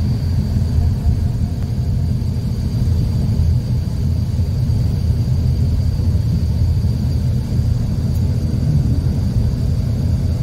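Steady low rumble of road and engine noise heard from inside a moving vehicle's cabin, with a faint, thin high whine over it.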